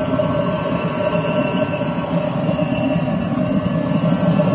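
Powermat PM-NAG-30KN 30 kW oil-fired space heater with flue running steadily: fan and burner make a constant blowing noise with a steady hum.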